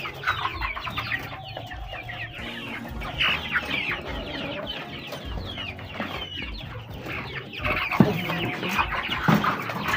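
A flock of caged young layer hens (pullets) clucking while they eat, many short falling calls overlapping. Two sharp knocks stand out near the end.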